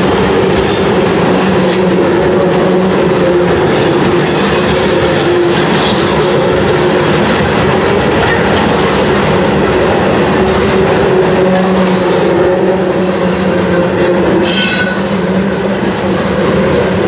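A full CSX rock train's loaded open-top hopper cars rolling past close by: a loud, steady rumble of steel wheels on rail, with a steady low hum running through it.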